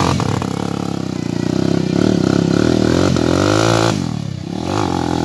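Dirt bike engine revving, its pitch rising and falling several times, as the rider works the bike through deep mud.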